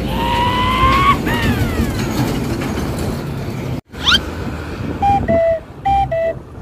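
A low steady vehicle rumble under a string of whistle-like tones: one rising tone, then several falling ones. After a sudden brief dropout comes a quick rising chirp, then two pairs of two-note beeps, each pair a higher note followed by a lower one.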